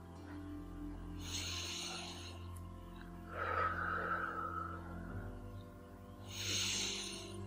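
Slow, deep breaths: three long breath sounds a couple of seconds apart, over soft, steady background music.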